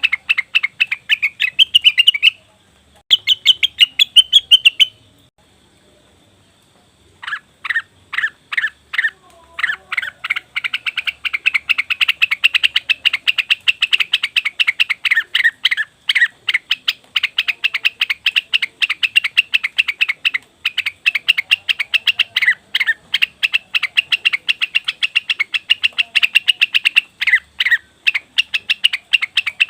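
Cucak wilis (rengganis) bird calling in fast runs of short, high chattering notes, with a short pause about five seconds in and a few separate notes before the chatter resumes almost without a break. This is a lure call used to draw birds of the same kind to answer.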